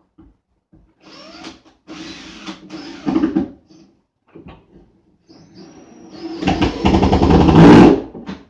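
A power tool's motor runs in short bursts, the last and loudest lasting under two seconds near the end.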